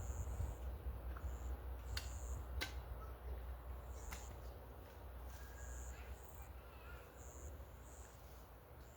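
Short high bird chirps repeating irregularly over a steady low rumble, with a few sharp clicks about two and four seconds in.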